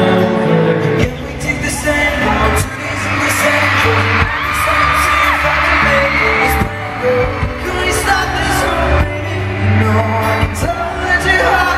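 Live pop band performance heard through arena sound, with male vocals sung over the band and a steady bass.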